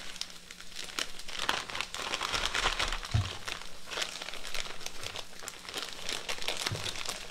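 Plastic bag of shredded mozzarella being pulled open and handled, the plastic crinkling continuously, loudest around two seconds in.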